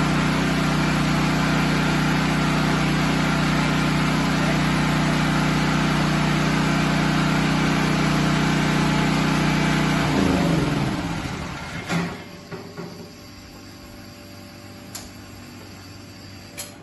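Portable generator engine running steadily on biogas, then switched off about ten seconds in, its pitch falling as it winds down to a stop. A sharp click follows, then a couple of small clicks.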